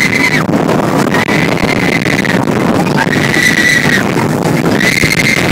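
Roller coaster ride heard from a rider's seat: a loud, steady rush of wind and track rumble, with four high squealing cries about a second long each.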